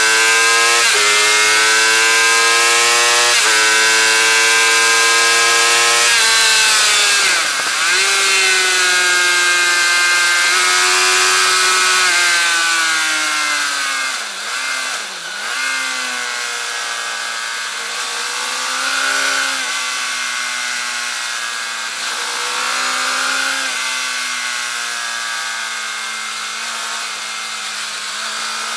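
Suzuki GSX-R 750 K8's inline-four engine at high revs, heard onboard over steady wind rush: it accelerates through three quick upshifts, then the revs fall away with blipped downshifts under braking, and it runs lower through the corners with short throttle openings near the end.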